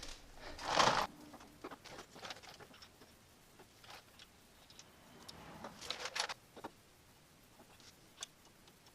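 Faint, scattered metallic clicks and rustling as motorcycle brake calipers and their bolts are handled and fitted, with two brief louder scrapes about a second in and around six seconds in.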